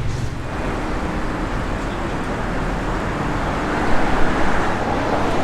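Road traffic: a car's engine and tyres on the street, swelling as a vehicle passes about two thirds of the way in.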